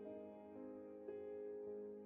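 Soft background music of slow, held keyboard notes, with a new note coming in about every half second.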